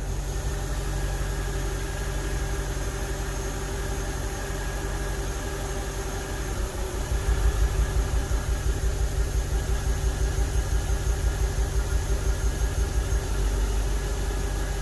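BMW N62 4.8-litre V8 idling unevenly. About halfway through, the idle takes on a regular pulsing beat of roughly four a second, then steadies again near the end. This is the brief bog or hesitation, like a miss or misfire, that has appeared since the valve cover gaskets were replaced.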